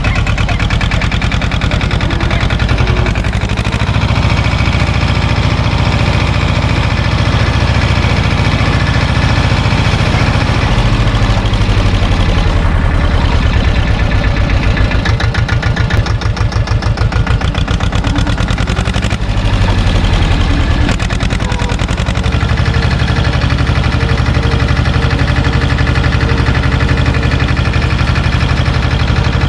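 Small Same tractor's diesel engine running as the tractor is driven off, with engine speed dropping and picking back up around ten seconds in and again around twenty seconds in.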